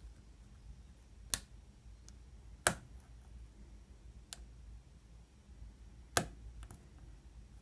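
Sharp clicks from a lock pick and tension wrench working the pins of a Master Lock bike lock's pin-tumbler cylinder: three loud clicks at uneven gaps, with a couple of fainter ticks between.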